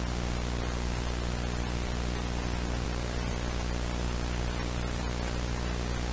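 Steady static hiss with a low, even hum beneath it, unchanging throughout.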